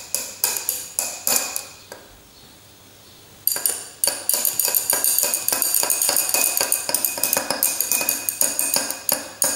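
Glass stirring rod clinking rapidly against the inside of a glass beaker, several clinks a second, each with a short glassy ring, as drops of sodium hydroxide are stirred into the acid. The clinking stops for about a second and a half near the two-second mark, then starts again.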